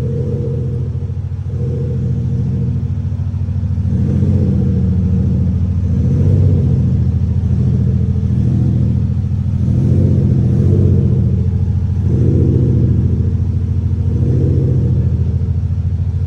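Deep, engine-like exhaust rumble produced by an Xhaust electronic sound booster on a Range Rover Velar. It swells with repeated throttle blips about every two seconds.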